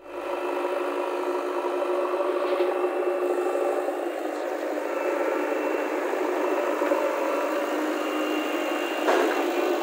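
JCB 3DX backhoe loader's diesel engine running steadily, heard up close, with a brief knock near the end.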